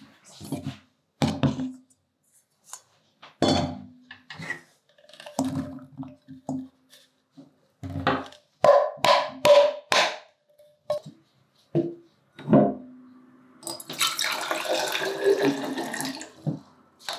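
Clinks and knocks of utensils and food against a stainless-steel bowl, with a quick run of bright clinks about eight seconds in as cut vegetables and edamame are tipped into the bowl. Near the end, water is poured from a measuring jug into a glass bottle for about two and a half seconds, the pour's pitch rising slightly as the bottle fills.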